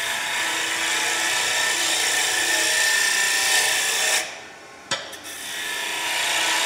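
Wood lathe turning a wooden blank while a hand-held turning tool shaves it, a steady scraping hiss of the cut as the shoulders left from roughing are smoothed off. The cut stops briefly a little after four seconds in, with a short click, then picks up again.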